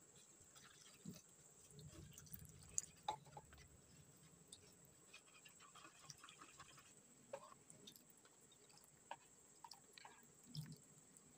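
Faint scraping and light clicks of a spoon stirring corn starch and water into a slurry in a bowl, with soft wet squishing.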